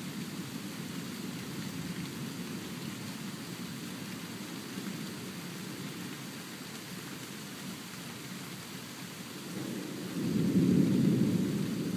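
Thunderstorm: steady rain with a low rumble of thunder underneath. The thunder swells into a louder roll about ten seconds in.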